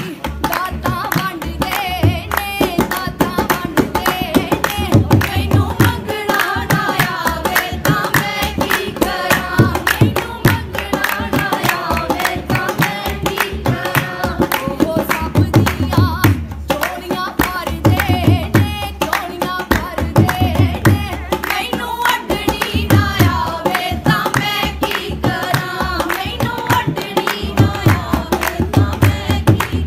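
Devotional kirtan hymns sung with instrumental accompaniment and a recurring low drum beat.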